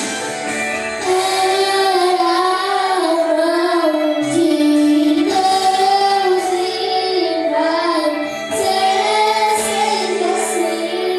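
Worship song: a high voice sings a slow, gliding melody over sustained instrumental accompaniment, coming in stronger about a second in.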